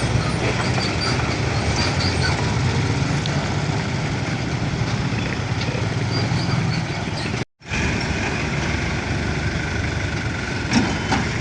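Road traffic with a large truck's engine running steadily. The sound drops out completely for a split second a little past the middle.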